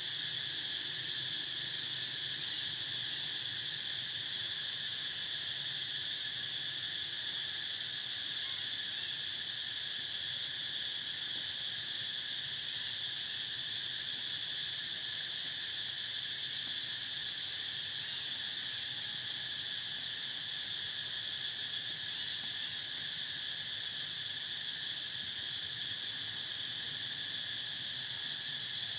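Insects droning in a steady chorus: one high, even drone that does not change or break.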